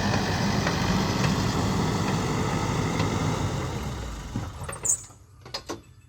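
Diesel engine of a JCB backhoe loader running steadily at work. It fades and cuts off about five seconds in, leaving a few faint clicks.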